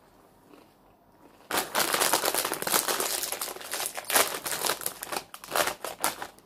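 Plastic Tayto crisp packet crinkling as it is handled and pulled open, starting about a second and a half in with dense, irregular crackling.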